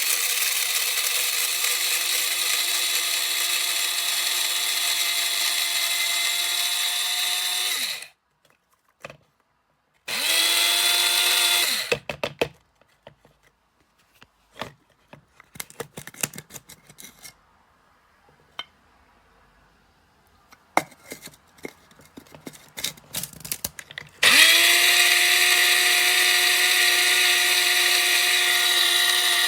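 Krups Fast Touch electric blade coffee grinder running in three bursts: about eight seconds, then about two seconds, then five seconds near the end. Each burst has a steady high motor whine that spins up at the start and winds down when it stops. Scattered clicks and knocks fill the pauses between runs.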